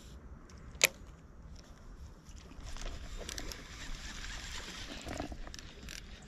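Shimano Calcutta Conquest baitcasting reel: a sharp click a little under a second in, then for a few seconds the spool spinning as line pays out on a cast.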